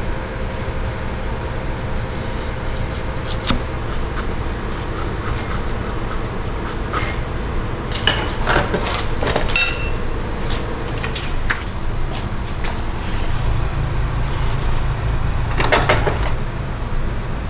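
Hand work with a wooden strip at a steel bench vise: scattered knocks and clatter of wood against metal, thickest about eight to ten seconds in, with a short metallic ring among them. A steady low rumble runs underneath.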